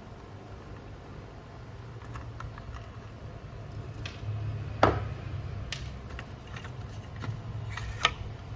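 Scattered clicks and knocks of hard plastic as the black plastic side cover of a copier fuser unit is handled and pried off. A sharp click comes about five seconds in and another near the end.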